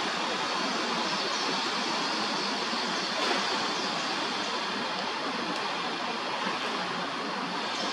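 Steady, even rushing background noise of city traffic around an urban park, with no distinct events.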